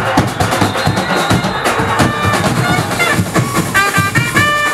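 Carnival street band of snare drums and large bass drums playing a fast, dense beat. About two seconds in, a melodic line comes in over the drumming.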